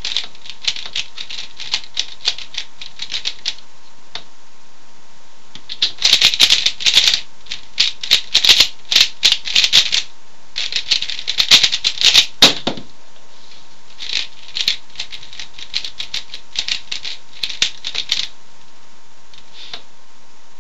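Plastic 3x3 Rubik's speedcube being turned rapidly with R and U face turns, giving a fast clicking clatter. It comes in bursts, sparse at first, densest over several seconds in the middle, then lighter, and stops near the end.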